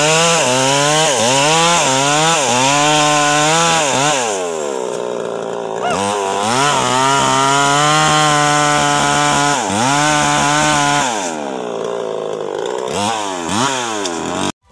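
Gasoline chainsaw with a 22-inch bar cutting into a mahogany trunk, its engine pitch sagging under load and recovering about once a second. The engine eases off about four seconds in, revs up and cuts again, then drops toward idle with a couple of quick throttle blips near the end, and the sound cuts off suddenly.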